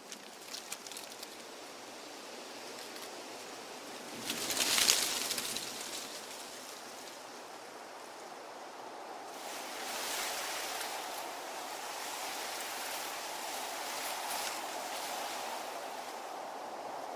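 Leaves and twigs of foliage rustling, with a few light crackles at the start, a louder swell of rustling about four to five seconds in, and a steadier rustle from about ten seconds in.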